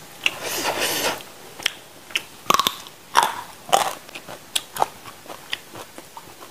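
Close-up eating of raw lalapan vegetables: several crunchy bites and chewing, with sharp wet mouth clicks in between.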